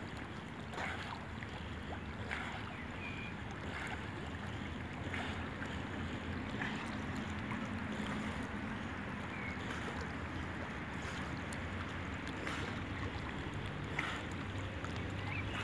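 Lake water lapping and splashing around a swimming Staffordshire bull terrier, with small splashes every second or two, over steady wind noise on the microphone.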